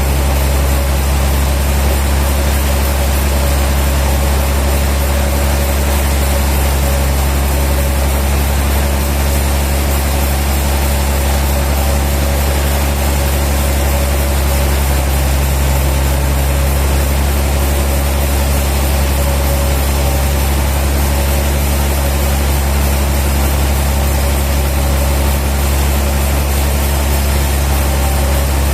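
A heavy engine running steadily at an even speed, with a constant low hum and no change through the whole stretch.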